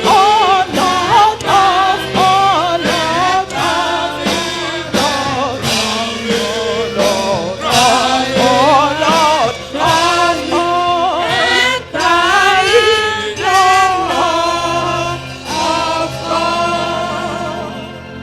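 Church congregation singing a gospel hymn together to instrumental accompaniment with a steady beat, fading out near the end.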